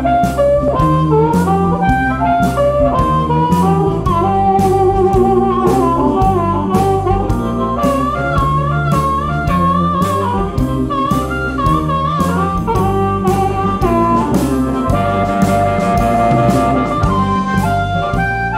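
Live blues band playing an instrumental break: a harmonica lead with bending notes over electric guitars, bass guitar, keyboard and a steady drum beat.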